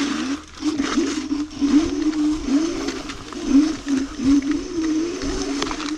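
Electric scooter hub motor whining under full throttle on a steep climb, its pitch wavering up and down as the wheels lose grip on wet leaves. Scattered knocks from the scooter going over roots and bumps.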